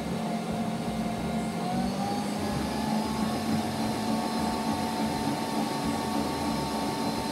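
Bosch Universal kitchen mixer's motor running steadily with a hum, its pitch rising a little about two seconds in.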